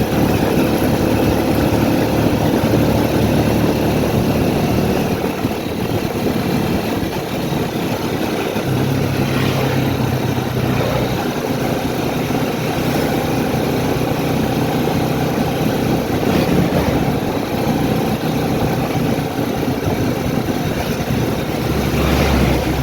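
A motor vehicle's engine running with road noise, its note shifting a couple of times.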